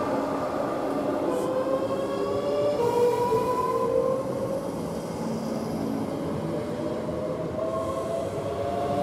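Great Northern electric multiple unit moving out along the platform, its traction motors whining in several tones whose pitch slowly rises as the train picks up speed, over the rumble of the wheels on the rails.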